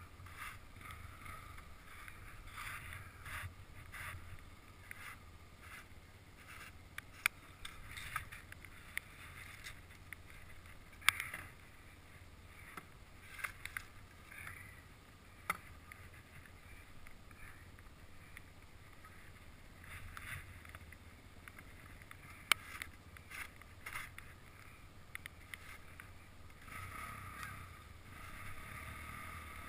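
Quad (ATV) engine running low and muffled, a steady low rumble, with a few sharp clicks now and then.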